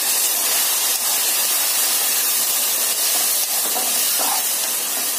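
Steady sizzling hiss of water just added to potatoes, tomatoes and spices frying in hot oil in an aluminium kadhai.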